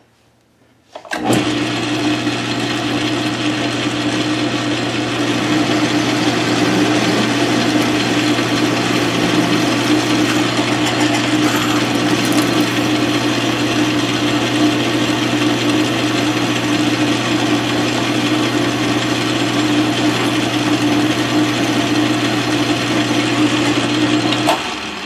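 South Bend 13-inch metal lathe running, its spindle turning the part in the four-jaw chuck while a twist drill in the tailstock chuck bores into it: a steady hum with cutting noise that starts about a second in and stops shortly before the end. The drill is leading (wandering off line) something fierce.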